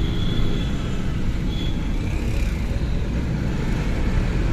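Steady road and engine rumble heard from inside a moving vehicle, with a faint high-pitched whine that comes and goes in the first couple of seconds.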